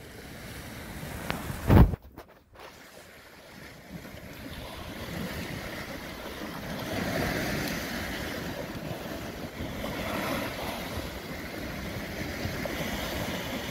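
Sea waves washing and breaking against a rocky shore, swelling and easing, with wind on the microphone. A brief loud thump comes about two seconds in.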